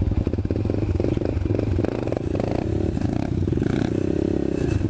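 Small off-road engines of a 125cc dirt bike and an ATV running close by, their throttles rising and easing, with a swell in engine pitch about three and a half seconds in.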